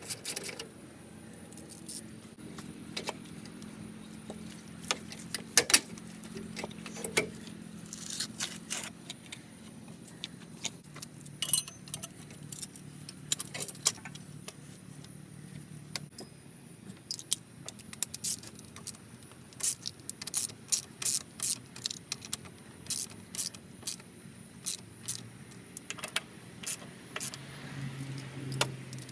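Metal hand tools and parts clinking and clicking against each other under a truck's hood, as pipe fittings are worked on. The clicks come one at a time at first and in quick runs in the second half, over a faint low hum.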